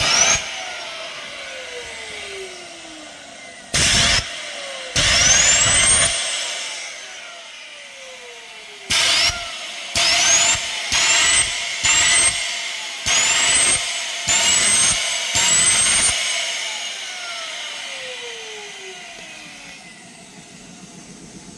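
Small Tesla turbine driven by about ten short blasts of steam through a solenoid valve. Each blast is a loud hiss while the rotor's whine climbs sharply in pitch, and between blasts the whine slides down as the rotor coasts. After the last blast, about three-quarters of the way in, one long whine winds steadily down.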